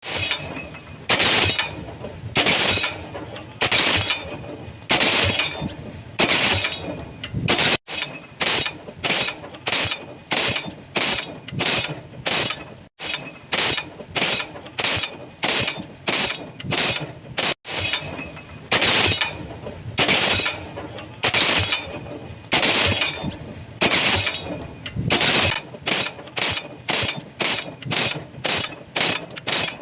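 Pile driver hammering in repeated metallic blows that ring briefly: about one blow a second at first, then faster runs of two to three blows a second. The sound cuts off abruptly three times and picks up again at a new pace.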